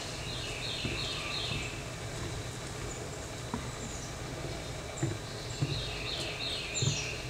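A small bird singing twice, each phrase a quick run of high chirps stepping down in pitch, over a steady low background rumble. A few dull low thumps sound in the second half.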